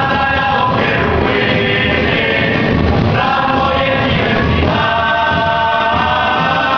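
Music: a group of voices singing together as a choir over a steady low drum beat.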